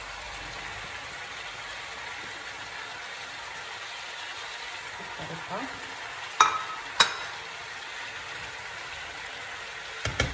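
Chicken frying in oil in a pan, a steady sizzle, as chopped onion and carrots are tipped in. Two sharp knocks about six and seven seconds in, and stirring clicks at the end.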